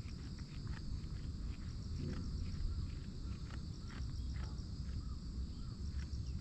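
Tokara goats chewing their cud, their teeth grinding in a steady run of soft clicks, several a second.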